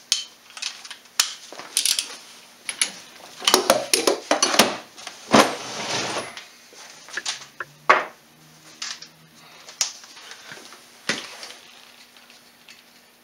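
Metal hand tools and parts clinking, knocking and scraping irregularly while work is done on an ATV's rear wheel hub, as the axle nut is being fitted and tightened. The clatter is busiest in the middle, with a short scrape among the knocks.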